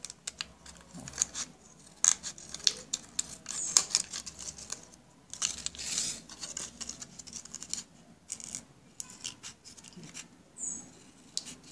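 Medium-sized pointed scissors snipping through a thin plastic PET bottle bottom: a rapid, irregular run of sharp snips, with a crackle of the plastic being handled about halfway through.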